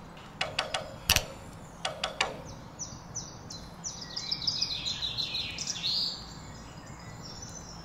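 Small birds chirping: a few short sharp calls, then a quick run of repeated high chirps for several seconds.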